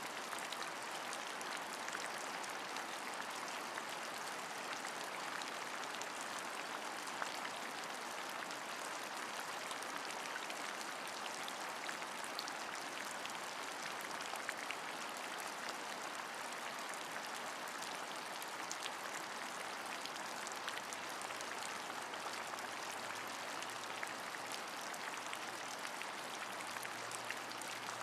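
Steady rain, with scattered individual drops ticking through the even hiss. A faint low hum joins in about three quarters of the way through.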